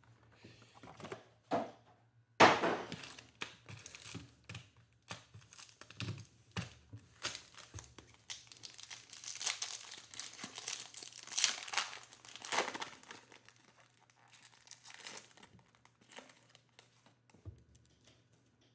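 Foil trading card packs of Panini Mosaic basketball cards being torn open and crinkled by hand, an irregular crackling rustle. The loudest part is a sharp burst about two and a half seconds in. The rustling is busiest in the middle and thins out near the end.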